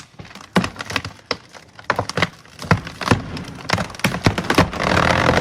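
Wood cracking and splintering: a rapid, irregular series of sharp cracks and snaps, like a tree giving way. A steady, dense rushing noise starts near the end.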